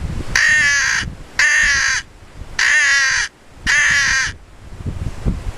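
Lohman crow call, a wooden call with a plastic reed, blown in four drawn-out, gargled caws about a second apart, imitating a crow.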